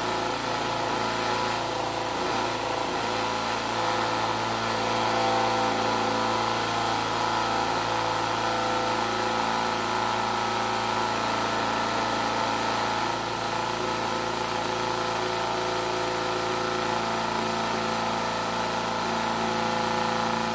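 Electric vibrator running steadily with a constant hum, shaking a mould of wet plaster to drive air bubbles out and settle the plaster around a mushroom.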